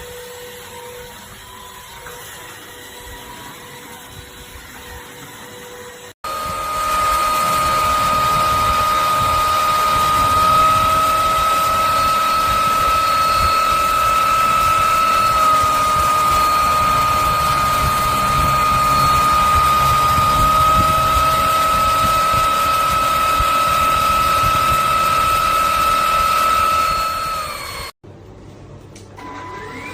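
EZhome EC08 wet-and-dry floor vacuum cleaner's motor running. It is a softer hum for the first few seconds, then a loud steady high whine from about six seconds in. Near the end the pitch falls as it winds down, and it spins up again with a rising whine.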